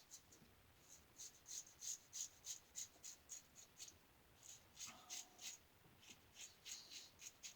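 A New Gem lather-catcher safety razor with a single-edge Gem blade scraping stubble through lather in short, quick strokes, about three a second, with a brief pause partway through. It is a close shave pass taking the face beyond daily-fit smoothness.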